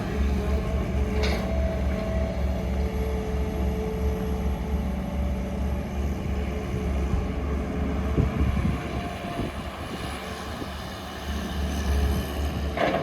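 Heavy diesel engine running steadily, with faint whining tones above its drone. It eases off about ten seconds in and picks back up near the end.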